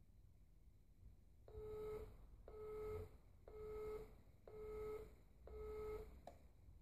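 Clay trap release controller beeping a countdown, five short beeps about one a second on one steady tone, during the solo-pairs release delay, followed by a click near the end.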